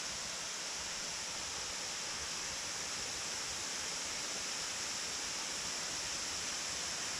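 Rushing water of a creek and its waterfall, a steady, even hiss.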